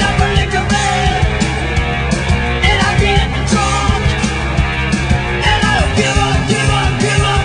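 Rock music with drums and a steady beat.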